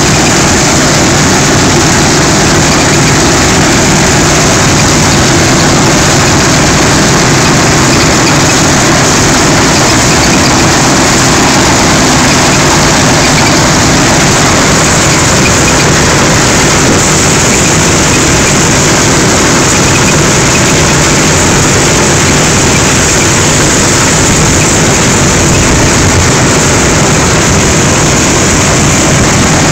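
Claas Dominator 98 VX combine harvester threshing rapeseed, its engine and threshing works running loud and steady under load, with the C450 rapeseed header cutting the crop close by.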